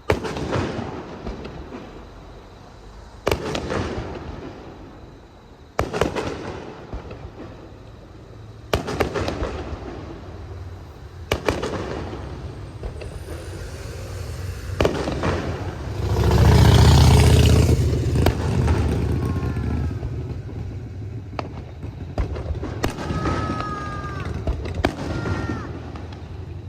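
Aerial firework shells bursting, one sharp bang every two to three seconds, each trailing off in a rumble. About two-thirds of the way through comes a louder, longer, heavy rumble.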